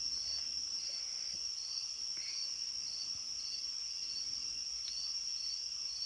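Night insect chorus: a steady, high-pitched trill with a second insect chirping about twice a second beneath it.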